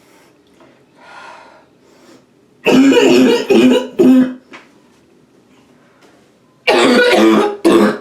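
A woman coughing hard in two bouts: three harsh coughs about two and a half seconds in, then two more near the end.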